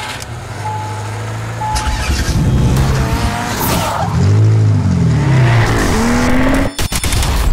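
Car engines revving, the pitch sweeping up and down several times, with a few short high beeps in the first two seconds. A sudden break with sharp clicks comes about seven seconds in.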